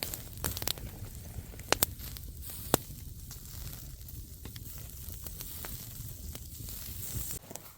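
Shrimp skewers sizzling on a small grill over hot coals: a steady hiss with several sharp pops and crackles.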